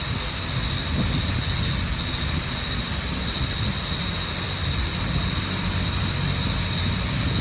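Steady background noise, strongest in the low end, with a constant high-pitched whine running through it.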